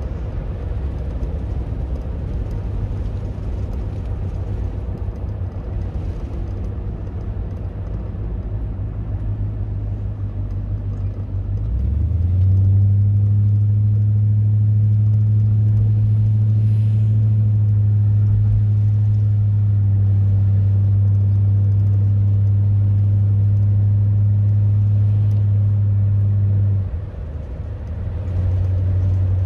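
Car driving along a road: a steady low rumble of tyres and engine, which swells into a louder, even drone about twelve seconds in and dips briefly near the end.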